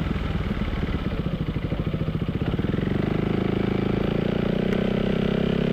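Yamaha XMAX 250's single-cylinder engine through a Vilan MV1 stainless slip-on exhaust with its dB killer fitted, pulsing at low revs and then rising in pitch as the scooter accelerates from about halfway through. The dB killer keeps the note subdued.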